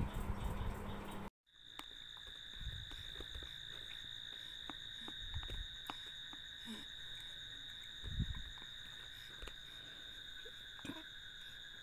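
A second of hum and noise cuts off abruptly, then a steady, unbroken high-pitched drone of calling insects runs on, with scattered faint clicks and a low thump about eight seconds in.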